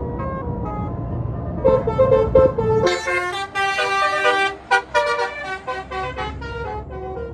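Tour bus's basuri 'telolet' multi-tone musical air horn playing a quick tune of stepped notes over the bus's engine. The notes grow loud about two seconds in and end in a string of short staccato blasts.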